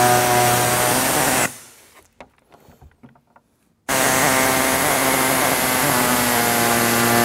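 A handheld power cutting tool runs steadily as its blade cuts through a plastic truck grille. It stops about one and a half seconds in and winds down, leaving a short gap with a few faint clicks and taps. About four seconds in it starts again abruptly and cuts on.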